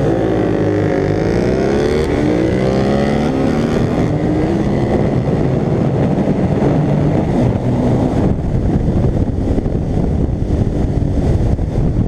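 Suzuki 650 motorcycle engine accelerating hard through the gears, its pitch climbing and dropping back at each shift over the first few seconds. After that, wind rushing over the camera at speed drowns out most of the engine.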